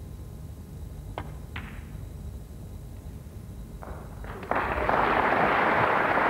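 Two sharp clicks of a snooker shot, then audience applause breaking out about four and a half seconds in, led by a few scattered claps.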